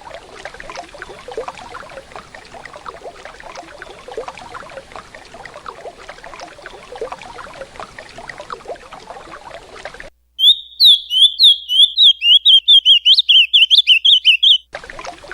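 Running river water for about the first ten seconds. The water cuts off abruptly and an azulão (ultramarine grosbeak) sings one loud, rapid warbling phrase of the 'canto Paraná' type for about four and a half seconds. The water starts again just before the end.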